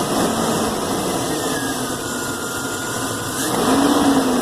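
2000 GMC Sierra's 4.8-litre Vortec V8 idling steadily on a cold start, with a slight swell in level near the end.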